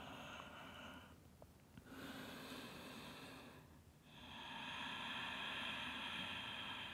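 A woman breathing slowly and deeply, faintly heard: three breaths, the last one the longest at about four seconds.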